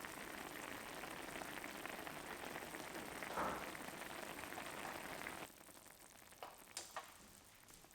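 Soy sauce braising liquid bubbling and sizzling at the boil around chicken wings in a pan, a steady crackling hiss that cuts off sharply about two-thirds of the way through, followed by a couple of faint clicks.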